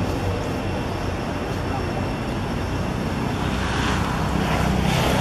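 Steady outdoor background noise, a continuous low rumble and hiss, swelling a little about three and a half seconds in.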